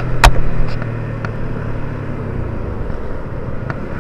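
Yamaha Vixion R motorcycle's single-cylinder engine running steadily while riding, with road and wind noise. A sharp click comes about a quarter-second in, with a few fainter ticks after it.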